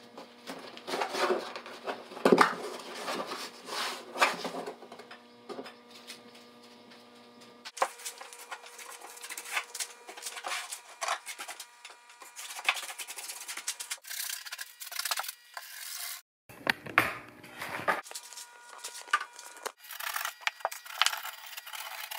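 Hands rubbing and scraping against plywood in uneven strokes while working screen mesh into a plywood boat outrigger, broken by abrupt cuts between short stretches of work. A faint steady hum sits under the first several seconds.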